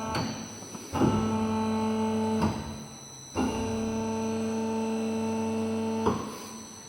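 Background music: a held, steady chord that starts with a hit about a second in, breaks off, and returns with a second hit before cutting away near the end.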